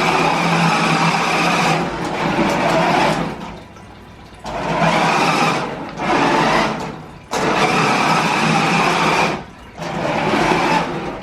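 Jada 1995 Toyota Supra four-wheel-drive RC drift car's electric motor and gears whirring as it is driven in about five short bursts of one to three seconds, easing off briefly between them.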